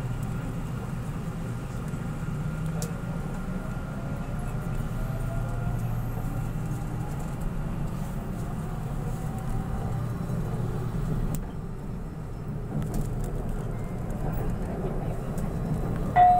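Inside an LRT Line 2 electric train car pulling out of a station: a steady low rumble from the running gear and rails, with a faint rising whine from the drive as the train gathers speed. A chime tone begins right at the end.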